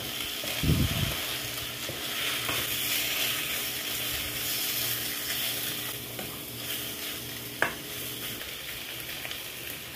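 Fish roe with shallots and grated coconut sizzling in coconut oil in a frying pan while a wooden spatula stirs through it, with one sharp knock about three-quarters of the way in.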